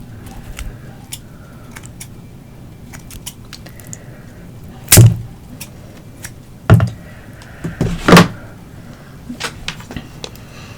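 Kitchen scissors cutting grilled octopus: scattered light clicks, then three loud snips about a second and a half apart.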